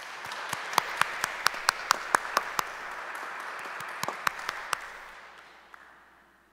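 Applause for an announced prize winner, a crowd clapping with several sharp, louder claps from someone close by, dying away over the last second or two.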